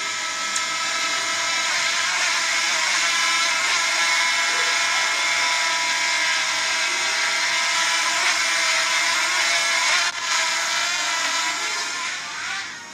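Quadcopter drone flying, its propellers giving a steady multi-tone whine that dips briefly about ten seconds in and fades near the end as the drone moves away.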